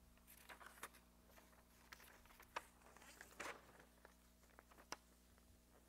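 Near silence in a small room: faint scattered rustles and small clicks over a low steady hum.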